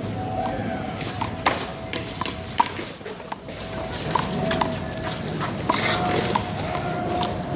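Rubber handball being struck by hand and bouncing off the wall and the pavement during a one-wall handball rally: a run of sharp smacks and bounces at uneven intervals.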